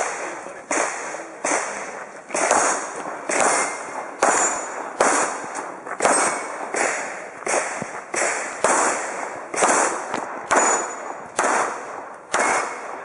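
Pistol shots fired in a steady string at steel plate targets, roughly sixteen shots at a little more than one a second, each with a short echoing tail; a few are followed by a brief high ring.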